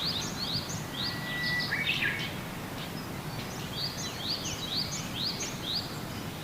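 Small birds chirping over and over in short, high notes, several to a second, with a brief held whistle and a lower double chirp about two seconds in, over a faint steady background hiss.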